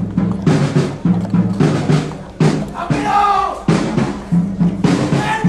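Procession drums beating a steady marching rhythm of about two strikes a second. Voices cry out briefly about three seconds in and again near the end.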